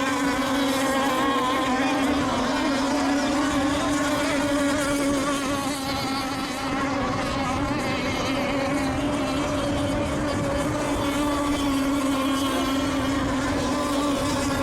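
Racing radio-controlled boats' two-stroke engines buzzing at high revs as they lap the course, one steady droning pitch with other engine notes weaving above it. The level dips briefly about six seconds in.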